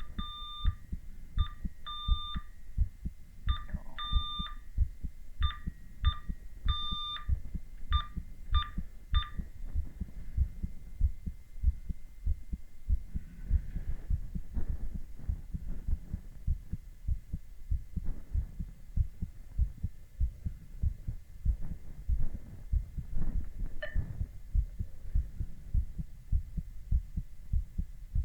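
A man's heartbeat heard through a stethoscope: steady, regular lub-dub heart sounds throughout. A series of short and longer electronic beeps sounds over them for roughly the first nine seconds.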